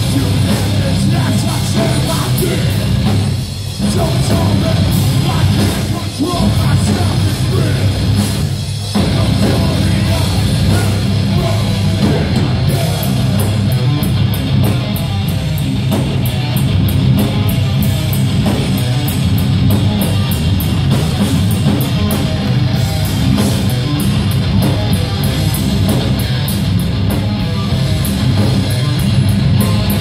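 Hardcore band playing live at full volume: distorted electric guitars, bass and drums with a vocalist over them and a heavy low end. The music breaks off for an instant three times in the first nine seconds, then runs on without stopping.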